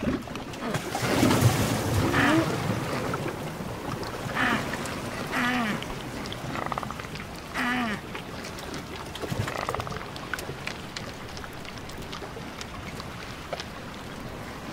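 Adélie penguins calling in a field recording: a handful of short calls that rise and fall, a second or two apart in the first half, over a steady hiss with fine crackles. From about ten seconds in, only the crackling hiss remains.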